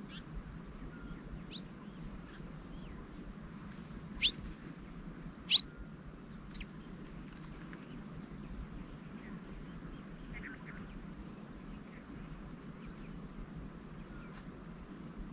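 Wild birds calling in short chirps and quick trills, with two sharp, loud calls at about four and five and a half seconds in, over a steady high-pitched buzz broken by brief gaps.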